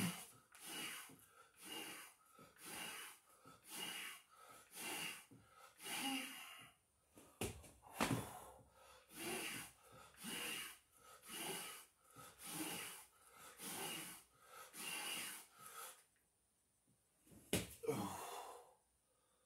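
A man breathing hard through a burpee set of push-ups, with forceful breaths in a steady rhythm of about three every two seconds. There is a sharp knock about eight seconds in. The breathing stops for a moment near the end, then he takes one more breath.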